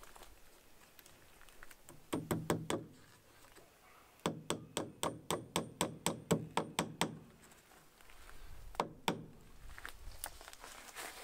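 Hammer driving a nail into wood. A few quick taps about two seconds in, then a steady run of about a dozen blows at roughly four a second, and two last knocks near the end.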